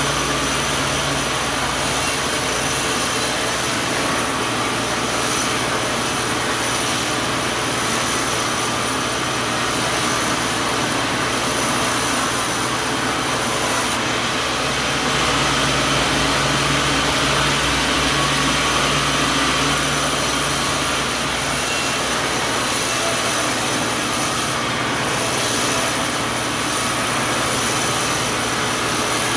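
Sawmill machinery running steadily: a constant, even mechanical noise with a few steady tones and no distinct cuts or impacts.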